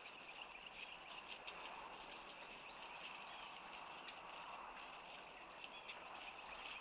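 Faint, steady chorus of many high-pitched animal calls, dense and unbroken, with small chirps and ticks scattered through it.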